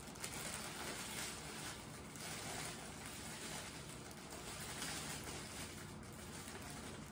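Cellophane wrap crinkling and rustling as it is gathered and handled around a gift box, over a steady hiss.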